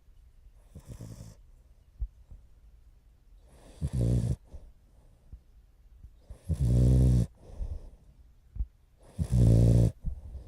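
French bulldog puppy snoring: four rattling snores about every two and a half to three seconds, the first faint and the other three loud, with soft breathing in between. The snoring is loud for a puppy of under four months.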